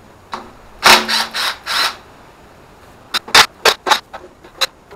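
Cordless impact driver spinning out oil pan bolts in a few short trigger pulls about a second in. From about three seconds in come sharp irregular clicks and knocks of tool and metal.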